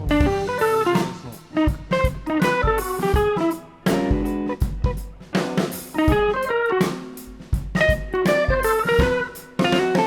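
Background music: electric guitar playing a melody over a drum kit with a steady beat.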